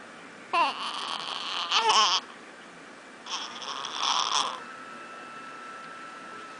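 A baby cooing and squealing in two bursts with a wavering, high pitch: a longer one about half a second in, and a shorter one about three seconds in.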